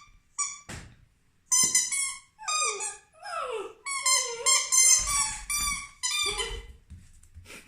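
Rubber squeaky toy squeaking over and over in short, quick runs as Saarloos wolfdog puppies chew on it, with a couple of squeals sliding down in pitch about three seconds in.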